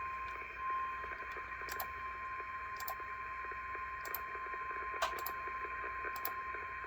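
NOAA Weather Radio warning alarm tone: a single steady high tone (about 1050 Hz) from a weather radio's speaker over radio hiss, signalling that a warning message is about to be read. A few faint clicks sound over it.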